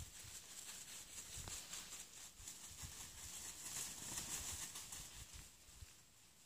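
Faint rustling and crackling in dry leaf litter from a flock of wild turkeys scratching and walking, with scattered low thumps.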